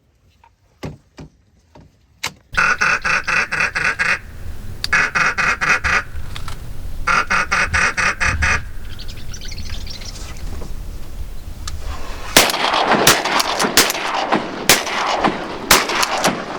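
Rapid duck quacking in three runs of evenly spaced quacks, then a string of sharp shotgun shots near the end.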